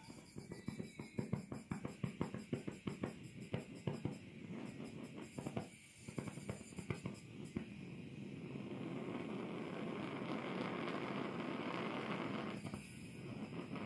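A quick irregular run of clicks and taps for the first several seconds, then a steady rushing hiss that builds over a couple of seconds and holds, with a short dip near the end: the special alcohol burner of a model alpha-type Stirling engine starting up.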